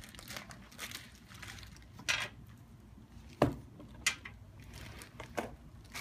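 Clear plastic packaging bag crinkling and rustling as a boxed water heater wrapped in it is handled and lifted out of a cardboard box, with several sharp crackles, the loudest about three and a half seconds in.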